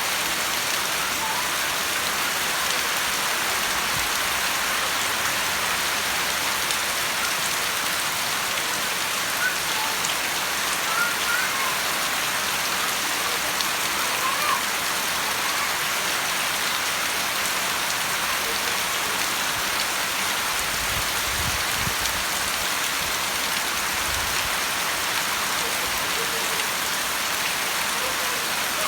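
Steady rain falling and pattering on surfaces, an even hiss that holds at one level throughout.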